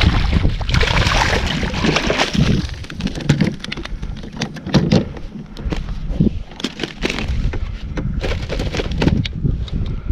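Wind buffeting the microphone on a kayak, a steady rumble, with scattered clicks and knocks throughout.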